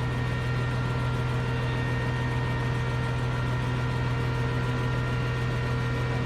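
A large machine running steadily, a constant low engine hum with a few even whining tones above it and no change in speed or load.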